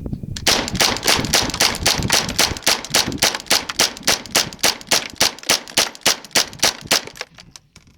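German Sport Guns STG-44 semi-automatic .22LR rifle being rapid-fired with Winchester hollow-point ammunition: a long, even string of sharp shots, about four a second, which stops about seven seconds in.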